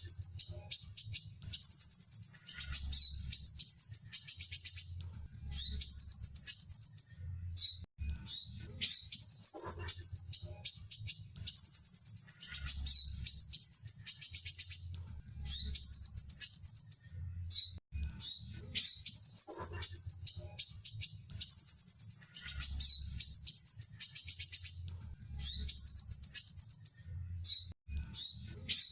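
Sunbird song: rapid, high-pitched twittering phrases with short pauses between them, the same sequence of phrases repeating about every ten seconds.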